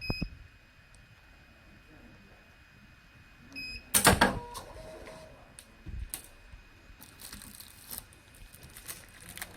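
Short electronic keypad beeps from a solder paste thawing machine's control panel as a password is keyed in. About four seconds in comes a loud clack and brief rattle as a compartment cover is released. Light clicks and rustling of handling follow.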